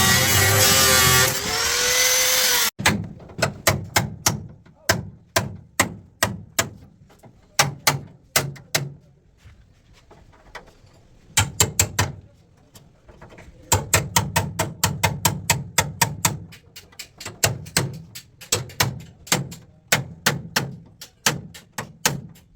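An engine runs briefly and rises in pitch, then cuts off abruptly. After that come repeated sharp knocks in bursts of about three a second, like hammer blows in car body repair.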